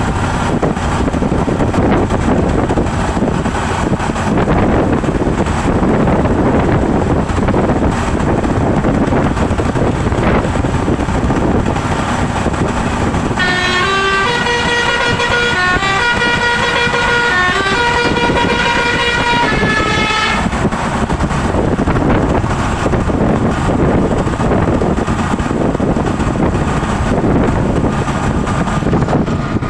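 A Basuri telolet bus horn plays a multi-note melody in quick stepped pitches for about seven seconds, midway through, over steady loud road and wind noise. Single horn tones sound faintly near the start and again at the end.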